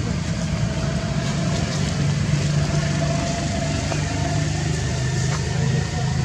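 Steady drone of an engine running nearby, with a low hum and a fainter higher tone, and a few faint ticks.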